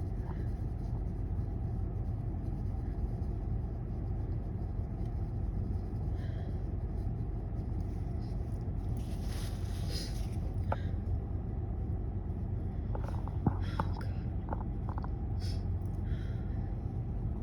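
Sniffling and a short breath through a congested nose about nine seconds in, from a person with a stuffed-up cold working toward a sneeze that does not come. A few small clicks follow near the end, over a steady low rumble.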